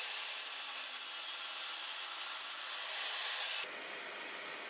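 Makita mitre saw blade cutting through a piece of wood: a steady sawing noise that stops abruptly about three-quarters of the way in. This is the test cut that checks the newly set plumb (90°) cut.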